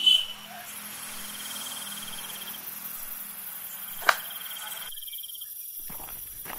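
Crickets chirping steadily in night-time ambience, with one sharp click about four seconds in. The background drops out for about a second, then running footsteps start near the end.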